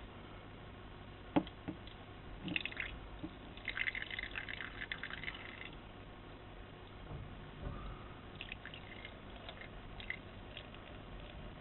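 Water splashing and trickling in short, irregular spells in a small battery-operated toy washing machine, with one sharp click about a second and a half in.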